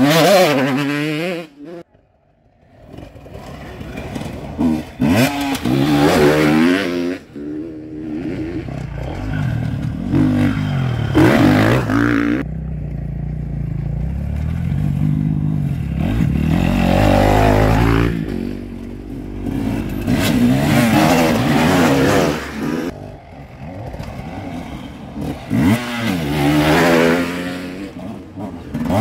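Enduro dirt bikes coming down a steep quarry hill one after another, their engines revving and dropping in pitch as each rider passes close by. There is a brief lull about two seconds in, and a steadier low engine note in the middle.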